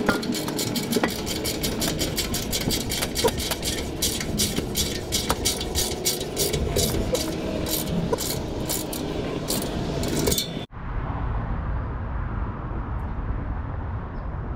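A ratcheting wrench clicking rapidly, about three to four clicks a second, as it tightens the exhaust flange bolts of a newly fitted catalytic converter. About ten seconds in the clicking stops abruptly, leaving a steady low rumble.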